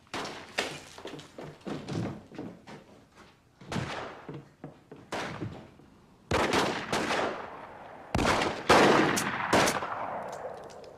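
A gunfight: many gunshots fired in quick, irregular succession, with the heaviest volleys in the last few seconds.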